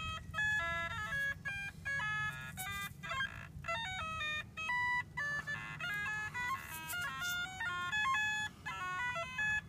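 Background music: a bright, synthesised melody of quick short notes.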